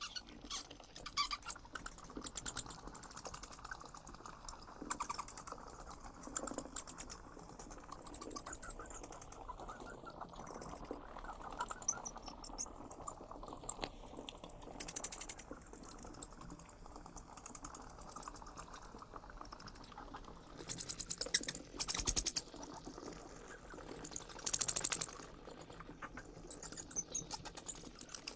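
Bats chittering: runs of rapid, very high-pitched clicks and squeaks, each lasting about a second, repeating with short gaps.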